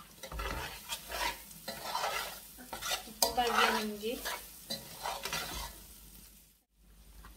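Metal spoon stirring and tossing biryani rice in a large metal pot on the heat, each stroke a rustling scrape against the pot, repeating about every half second to second.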